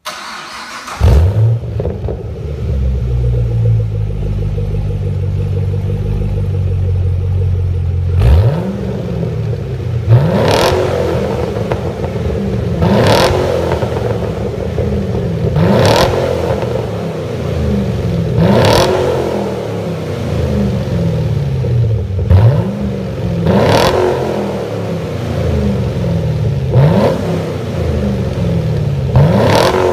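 Chevrolet Camaro V8 through an aftermarket MGmotorsport exhaust with an X-pipe. It starts with a flare about a second in and settles to a steady idle. After several seconds it is blipped repeatedly, about nine quick revs two to three seconds apart, each dropping back to idle.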